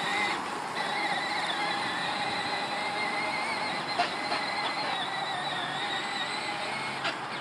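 Battery-powered ride-on toy tractor running across grass, its electric motor and gearbox giving a steady whine that wavers slightly in pitch. There is a sharp click about four seconds in and another near the end.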